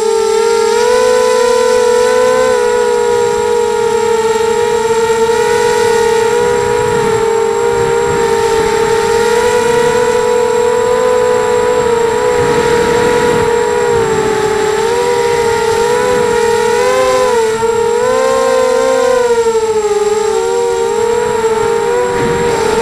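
Motors and propellers of a 250-size mini quadcopter whining in flight, heard from its onboard camera: a loud, steady whine whose pitch wavers slightly up and down with throttle, over a rush of wind noise.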